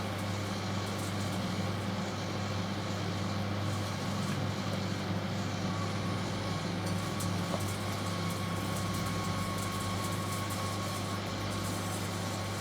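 Microwave oven running under power with a metal halide lamp capsule glowing inside it: a steady transformer hum with its fan.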